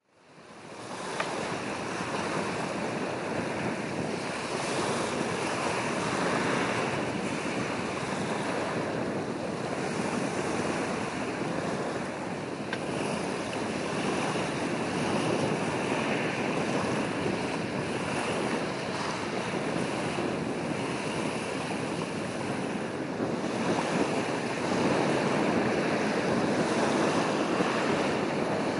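Steady rush of wind on the microphone and sea waves, fading in at the start and slowly swelling and easing in level.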